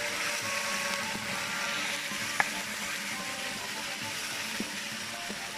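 Chunks of venison dropping into hot pork lard in an iron cauldron and sizzling steadily as they start to brown. A single sharp click about halfway through.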